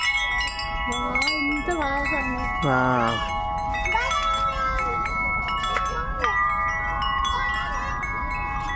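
Decorative hanging bells set swinging by hand, ringing like a wind chime: many clear, overlapping tones that ring on, struck afresh every second or so as the bells knock together.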